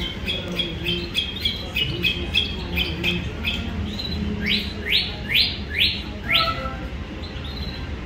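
Caged songbirds chirping: a run of short, quickly repeated high notes, then five loud downward-sweeping calls in a row around the middle.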